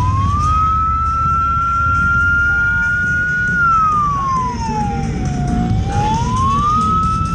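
A siren wails slowly: it climbs, holds its high note for about three seconds, sinks to a low note about five seconds in, and climbs again near the end. A pack of motorcycle engines rumbles underneath.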